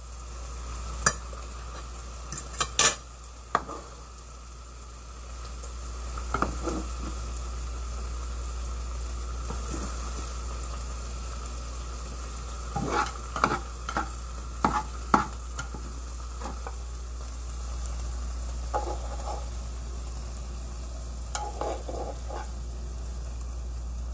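Metal tongs clicking and scraping against a hot frying pan and plate as beef bulgogi is served out. A steady frying sizzle from the pan runs underneath. The clicks come in a few sharp groups, the busiest about halfway through.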